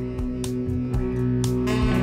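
Background music led by guitar, with a steady beat of sharp hits about once a second.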